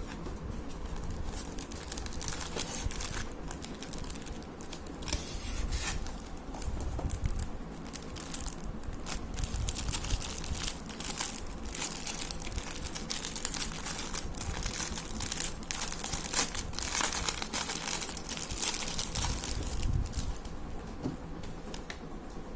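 Clear plastic packaging bag crinkling and rustling as it is handled and opened around a phone case. The crackling is heaviest through the middle and lighter near the end.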